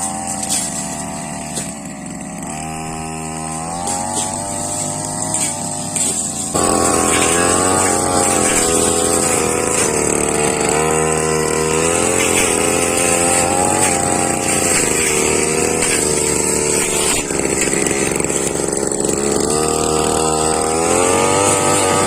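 Brush cutter engine running, revving up and getting louder about six seconds in, then holding high revs with its pitch rising and falling under load as it cuts.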